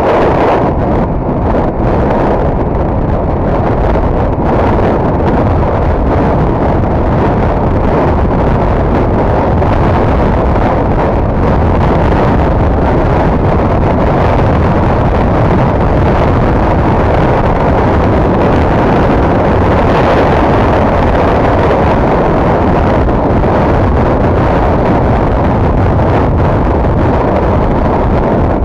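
Steady, loud wind buffeting on the microphone of a Honda MSX125 motorcycle riding through a rainstorm, with the bike's engine and road noise under it.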